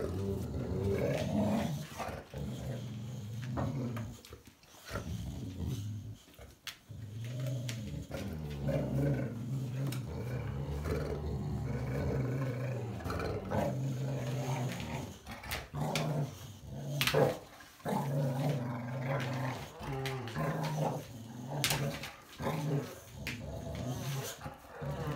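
Boxer dogs growling at each other in long, low, sustained growls with short breaks, cut by a few sudden sharp sounds, the loudest about two-thirds of the way through.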